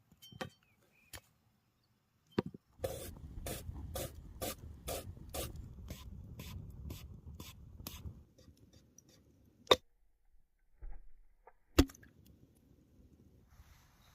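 A run of about a dozen sharp, even knocks, about two a second, over a low rustle. Two louder single knocks follow near the end.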